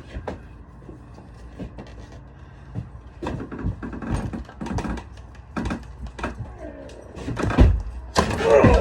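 Rubber wheelchair tire being worked over the wheel rim by hand: irregular knocks, scuffs and rubbing of rubber against the wheel, louder near the end along with a short strained vocal sound.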